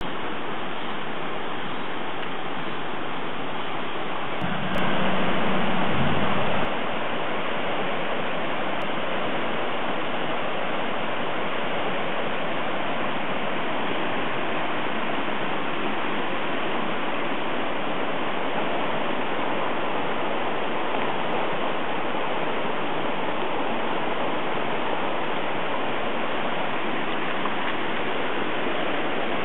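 Rushing floodwater: a steady, even rush of water throughout. A louder low rumble joins it for a little under two seconds, about five seconds in.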